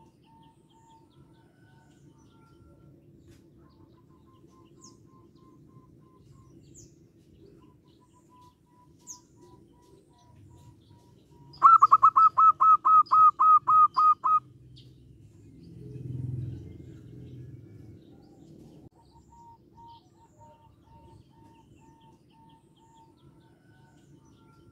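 Zebra dove singing its call: a quick run of about a dozen clear, evenly spaced notes lasting under three seconds near the middle. Fainter calls of other doves and small birds sound in the background, and there is a brief low rumble a little later.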